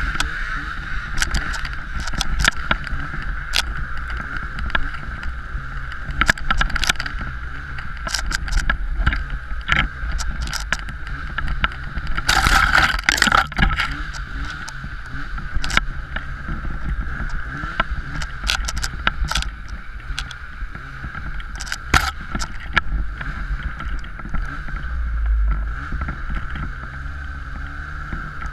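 Snowmobile engine running steadily as the sled moves through snow, with many sharp clicks and knocks scattered throughout and a louder rush about halfway through.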